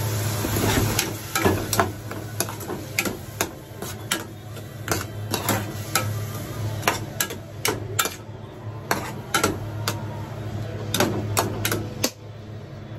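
Spatula tapping and scraping against an aluminium saucepan as cut fuki (butterbur) stalks are stirred, in quick irregular clicks, over a steady low hum.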